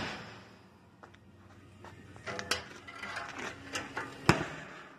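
A few light clicks and knocks of hands handling a steel barbecue smoker pit, with a sharp knock about four seconds in.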